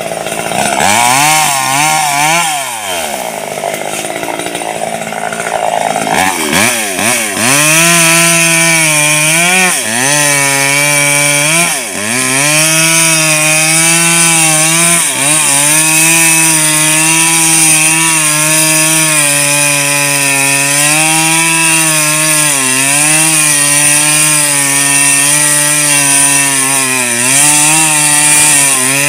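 A two-stroke chainsaw revs up and down for the first few seconds. It then runs at full throttle, cutting into the base of a mango tree trunk. The pitch dips briefly several times as the chain loads up in the wood.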